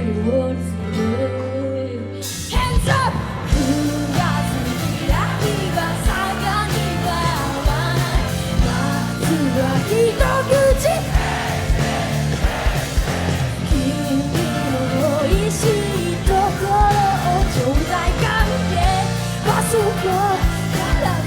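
Live pop-rock band with drums, bass, keyboards and guitar, with singing over it. The texture is lighter at first, and the full band with drums comes in about two seconds in.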